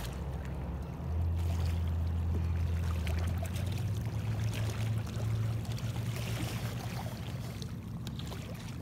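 A hooked blue catfish splashing and thrashing at the water's surface as it is reeled toward the bank, over a low steady rumble.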